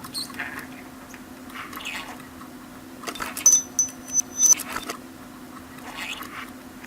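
Pet budgerigar making soft chattering and clicking sounds, with a burst of sharp, loud clicks and a thin high whistle in the middle. A steady low hum runs underneath.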